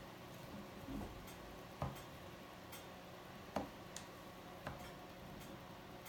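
A few sharp small metal clicks and taps as AR-15 rifle parts are handled, the loudest about three and a half seconds in, with a duller knock about a second in.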